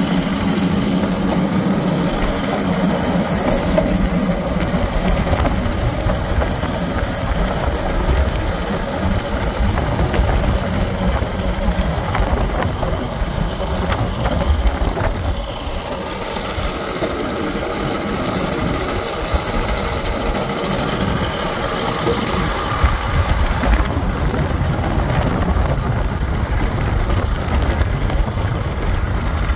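A rail speeder cart's small engine running steadily as the cart rolls along old track, with its steel wheels rattling on the rails.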